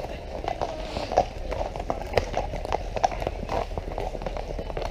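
Horses' hooves clip-clopping on a tarmac lane at a walk, several horses together giving an uneven run of knocks.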